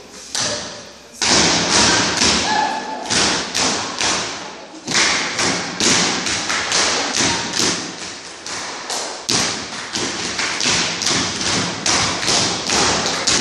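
Rhythmic percussion for a group dance: sharp beats at a steady pace of about two or three a second, starting about a second in.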